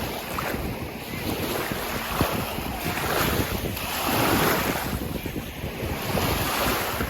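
Wind buffeting the microphone over small lake waves washing at the shore, with two louder washes in the middle.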